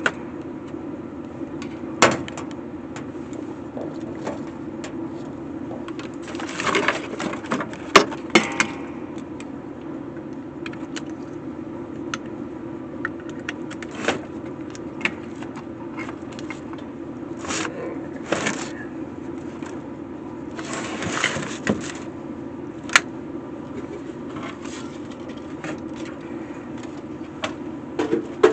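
Bench work with fence chargers: irregular clicks, knocks and short rustling scrapes as units and tools are handled, over a steady low hum.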